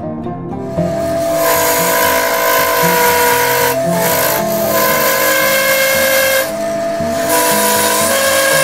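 A turning tool cutting into spinning wood on a wood lathe: a loud hissing scrape with a steady high-pitched whine. The cut starts about a second in, breaks off briefly twice near the middle and for about a second later on, then resumes.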